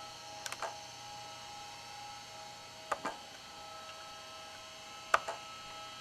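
Computer pointer buttons clicked in quick pairs three times, about half a second in, at three seconds and just after five seconds. Under them runs a steady electrical hum with a high, thin whine.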